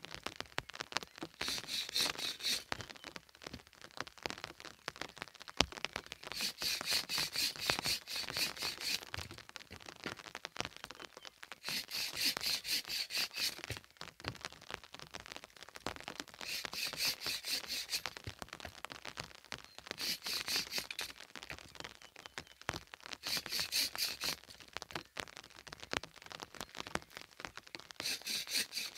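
Wood fire crackling and popping in an open hearth, burning somewhat wet firewood. Every few seconds comes a one- to two-second burst of rapid, even, high-pitched ticking.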